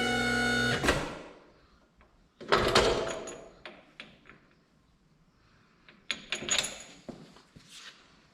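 A steady electric-hydraulic hose crimper's pump motor hum cuts off with a clunk about a second in. Two bouts of metal clanking and rattling follow, around three seconds in and again around six to seven seconds in, as the fitted hose and metal parts are handled.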